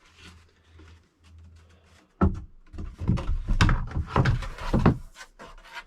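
Irregular wooden knocks and thumps, about a dozen over three seconds starting about two seconds in, as a wooden board is shifted and knocked into place against the bedroom furniture of a motorhome.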